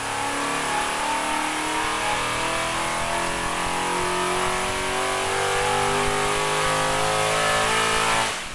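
Carbureted 402-cubic-inch small-block Chevy V8 running a dyno power pull under load, its pitch climbing steadily as the rpm rises. It cuts back sharply near the end as the pull finishes.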